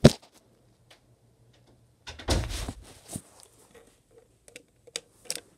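Handling noise on a handheld phone's microphone: a sharp knock right at the start, the loudest sound, then a short rustling burst about two seconds in and a few small clicks and taps near the end.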